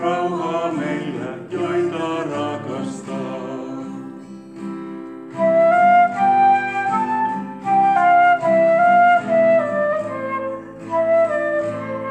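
Flute playing a slow melody over strummed acoustic guitar chords. The flute comes through louder from about five seconds in, with long held notes in a falling phrase.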